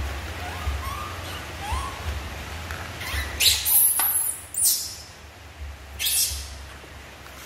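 Young macaques giving short squeaky calls, each rising in pitch, about once a second, then a few loud harsh hissing noises in the middle.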